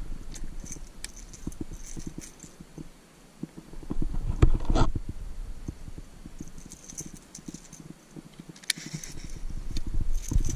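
Hollow knocks and clicks of a fishing rod and gear being handled in a plastic kayak, with one louder, longer noise about halfway through.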